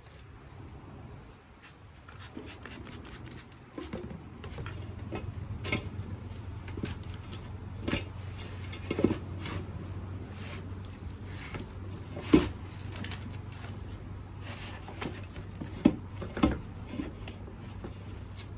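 Soapy motorcycle tire being pushed and worked down over its wheel rim: scattered knocks, squeaks and rubbery squelches, with sharp knocks about twelve and sixteen seconds in, over a steady low hum that starts about four seconds in.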